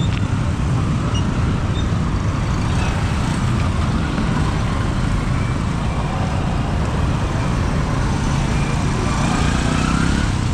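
Steady low rumble of passing traffic and heavy vehicles, with faint whining tones that rise and fall.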